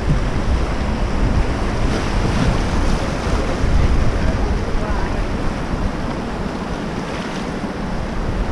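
River rapids rushing around an inflatable raft, with wind buffeting the raft-mounted camera's microphone. The low rumble eases a little in the second half.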